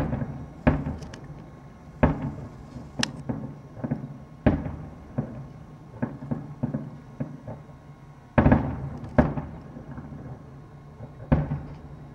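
Aerial fireworks shells bursting: a string of sharp booms, about ten in twelve seconds, each trailing off in an echo. The heaviest booms come about eight and a half and nine seconds in.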